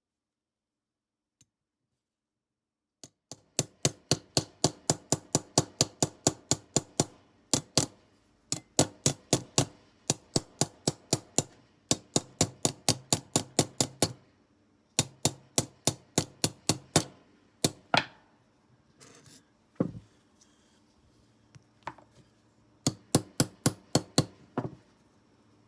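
Small hammer tapping rapidly on metal, about four strokes a second in runs of a few seconds with short pauses and a few single blows between, as when peening over the rivets of a folding knife's handle.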